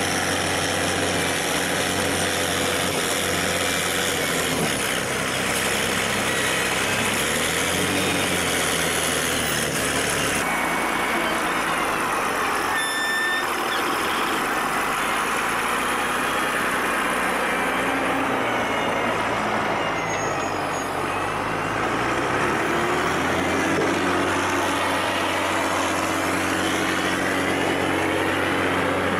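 Wheel loader's diesel engine running under load while it pushes earth, a steady low hum with noise over it. In the second half the engine pitch rises and falls.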